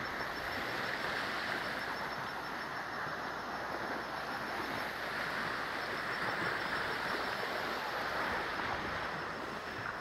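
River rapids rushing over rock in a steady, even roar of water; the river is running high after rising.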